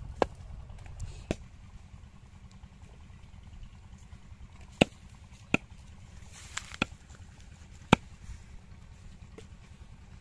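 Small axe chopping raw chicken through bone on a wooden chopping block: a handful of sharp, separate chops at uneven intervals.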